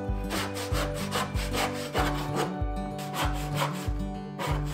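Brass-backed backsaw cutting maple by hand, in quick rhythmic push strokes of about three a second, over soft background music.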